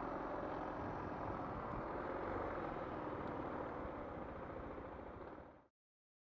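A small-engined motorcycle running at low speed, with road and wind noise, slowly getting quieter before cutting off abruptly about five and a half seconds in.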